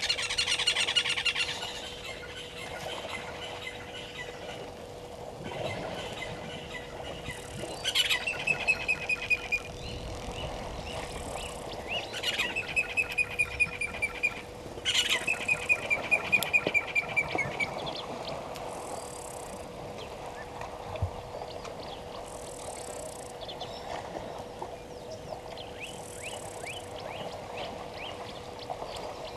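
Wild birds calling in several bursts of rapid chattering notes, over a steady faint hum.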